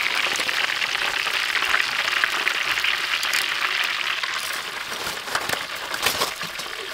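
Chicken legs deep-frying in a wok of hot oil: a steady crackling sizzle that grows quieter in the second half, with a few sharp metal clicks near the end.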